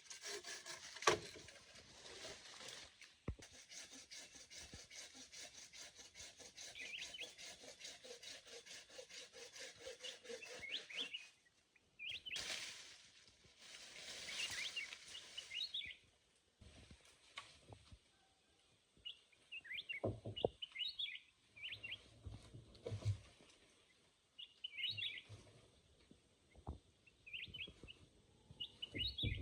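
Wood being sawn by hand in quick, even strokes for about ten seconds, then a few shorter bouts of rasping and some knocks, with small birds chirping.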